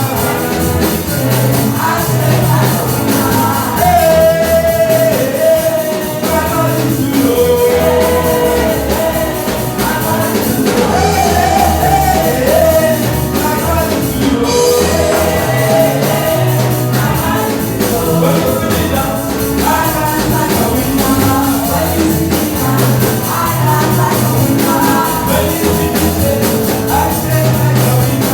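Gospel praise song with singing over a full band accompaniment with a steady beat.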